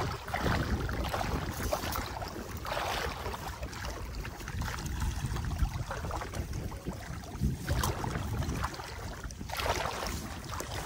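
Wind rumbling on the microphone over shallow sea water splashing and sloshing as a fishing net is pulled through it by hand, with a few short splashes standing out.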